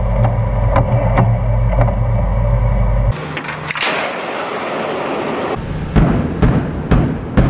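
Naval deck guns firing at sea. First a steady low rumble with faint regular reports, then a noisy rush with a single sharp crack about three seconds in. In the last second and a half, a small warship's deck gun fires loud sharp shots, about two a second.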